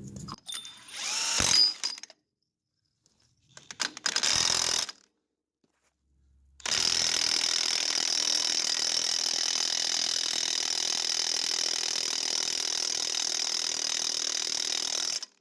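A few short mechanical noises with silent gaps between them, then a power tool running steadily for about eight seconds before stopping abruptly.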